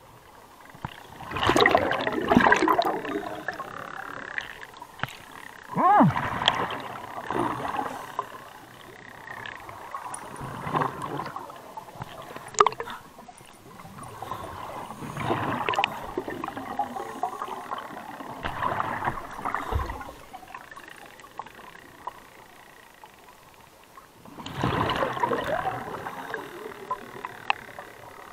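Scuba diver breathing underwater through a regulator: six bursts of exhaled bubbles, four to six seconds apart, with quieter stretches between them.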